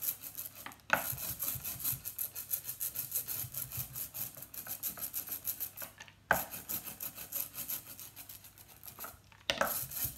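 Rubber ink roller (brayer) rolled through tacky printing ink on a glass plate: a sticky crackling rasp that sounds like Velcro, in long passes with fresh strokes starting about a second in, near six seconds and near the end.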